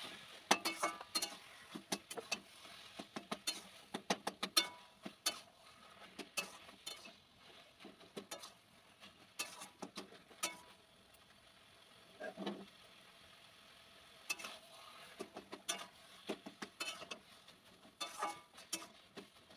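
Flat metal spatula scraping and clacking against a kadai while stirring thick cooked taro leaves, in quick irregular strokes, with a sparser lull about halfway through.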